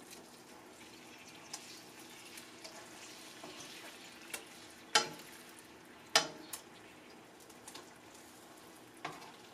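Chicken pieces simmering softly in a pan of honey mustard sauce, a faint steady sizzle. Kitchen tongs click against the pan several times, sharply twice around the middle.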